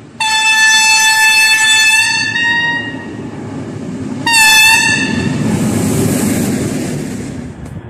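V100-family diesel locomotive (DB class 212) sounding its horn twice, a long blast of about two and a half seconds and then a short one, as it approaches. Its diesel engine then runs loud as it passes close by, fading near the end.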